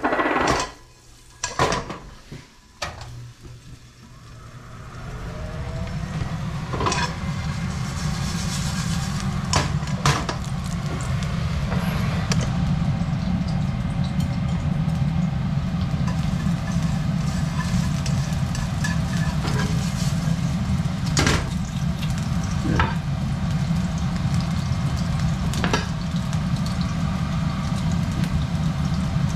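Ginger slices sizzling in hot oil in a frying pan, the sizzle building over the first few seconds and then holding steady over a loud low hum, with a few knocks of pans near the start and scattered clicks of utensils.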